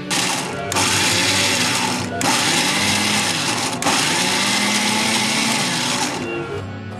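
Electric mixer grinder coarsely grinding sweet corn kernels in its steel jar, run in a few pulses with short breaks, and switched off near the end.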